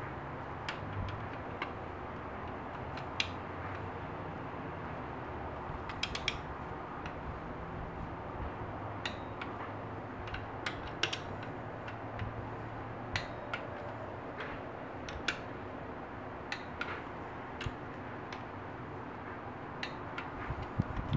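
Torque wrench ratcheting on an engine bearing cap bolt as the cap is torqued back down: irregular sharp clicks over a steady background hiss.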